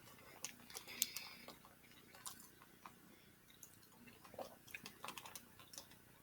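Close-up mouth sounds of a person eating tuna pasta salad: irregular wet chewing and lip smacks, the sharpest smack about a second in.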